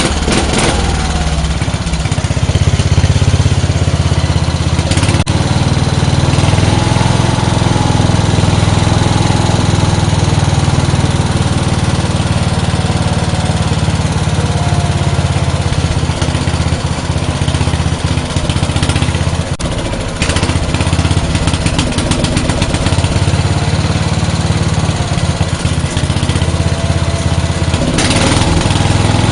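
A Speedex garden tractor's 10 hp Briggs & Stratton single-cylinder engine running steadily on its freshly rebuilt carburetor. It gets a little louder about two seconds in and dips briefly once.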